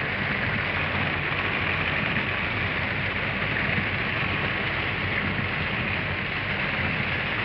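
Heavy rain falling on a car, heard from inside the cabin as a steady hiss over the low hum of the car driving.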